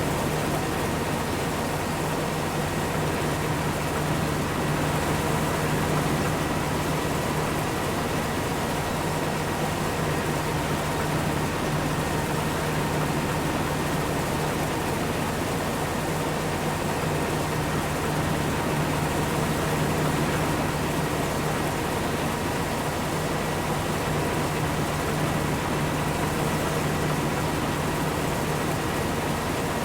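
Heavy farm machinery running steadily: a constant engine drone with a low hum and a thin, steady whine above it, with no change in speed.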